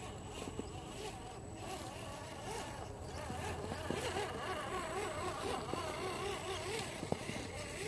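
RC4WD Toyota Hilux scale crawler's electric motor and gears whining as it crawls over leaves, the pitch wavering up and down with the throttle. A few sharp clicks come from the tyres and chassis.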